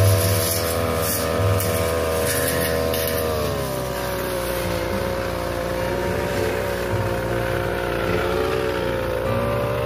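Backpack brush cutter engine running at high speed with a 45 cm blade fitted, trimming an ixora hedge: light crackle of the blade through leaves and twigs in the first second or so. The engine note drops a little about four seconds in, then holds steady.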